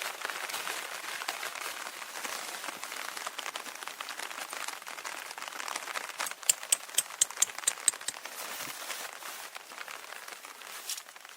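Rustling, crinkling handling noise, with a quick run of about eight sharp clicks a little past the middle.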